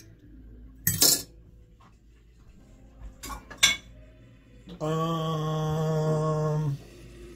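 Metal fork and frying pan clinking against a ceramic plate: a sharp knock about a second in and two lighter clinks at about three and a half seconds. Then a steady, evenly pitched buzzing tone lasts about two seconds and cuts off abruptly.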